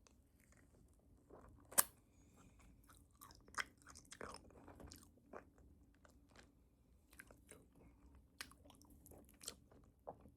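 A person chewing a crunchy bagel close to the microphone: irregular crisp crunches and wet mouth sounds, with the loudest crunch about two seconds in.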